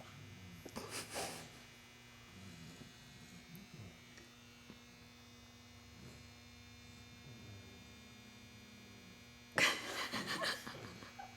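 Blue Weimaraner puppy snoring: soft, low snores with two louder raspy snorts, one about a second in and a louder one near the end.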